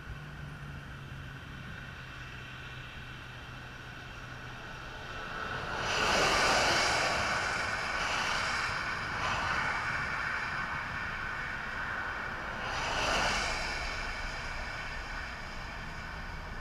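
Traffic passing on a wet interstate, tyres hissing through the water on the pavement. One vehicle pass swells and fades about six seconds in, and another shorter one comes about thirteen seconds in.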